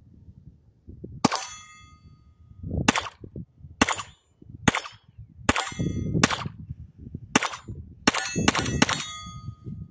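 Kel-Tec CP33 .22 LR pistol firing CCI standard-velocity 40-grain rounds: about ten sharp cracks, roughly a second apart and coming quicker near the end. Many shots are followed by a ringing metallic clang from a struck steel target.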